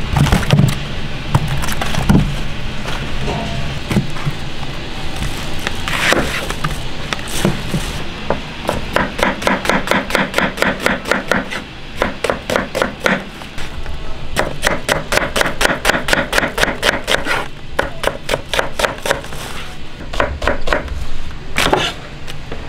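Kitchen knife slicing onions on a plastic cutting board. A few scattered knocks come first, then long runs of quick, even strokes, about five a second, broken by short pauses.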